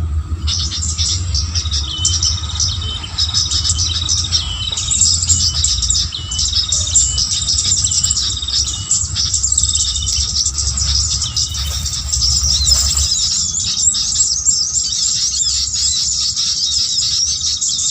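A dense, continuous chorus of small birds chirping and twittering, many calls overlapping, over a steady low rumble.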